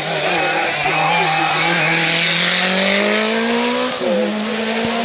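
Race car engine under hard acceleration on a hill-climb run. Its pitch climbs steadily, dips briefly at a gear change about four seconds in, and then holds.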